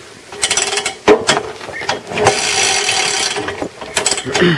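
A small UD-1 engine, bought as scrap and never overhauled, being cranked over by hand on its first start attempt. There are several sharp pulls with a ratcheting, scraping mechanical noise, and the engine does not run on its own yet.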